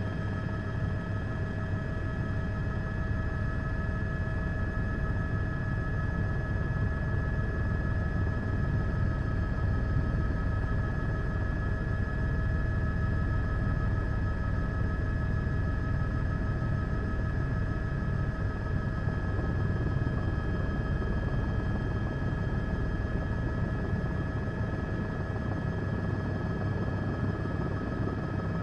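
Helicopter running, heard from on board: a steady low rumble with a steady high whine over it, unchanging throughout.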